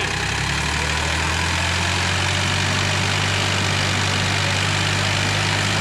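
Heavy truck engine running steadily under load, its pitch lifting a little at the start, as it hauls an overturned tractor upright on a rope.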